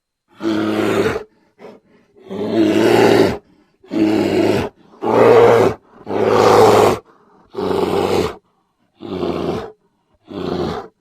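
A bear growling and roaring: a series of about eight loud, deep roars, each about a second long, with short pauses between them.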